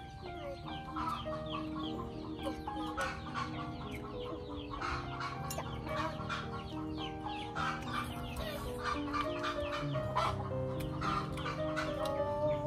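Chickens clucking over and over, with music playing underneath.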